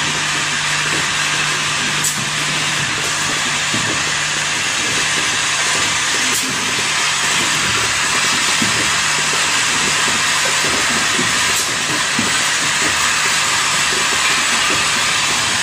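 Automatic ball valve assembly machines running: a steady loud hiss over a low hum, with three sharp clicks spaced a few seconds apart.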